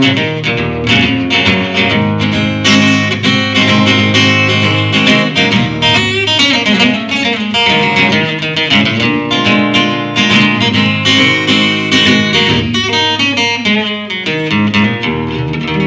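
Acoustic guitar played in a fast instrumental passage, many quickly picked notes and chords with no singing.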